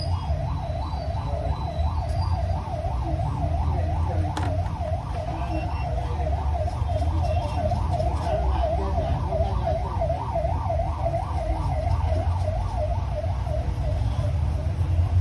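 Siren warbling rapidly, its pitch swinging up and down about three times a second, over a low, steady rumble like traffic.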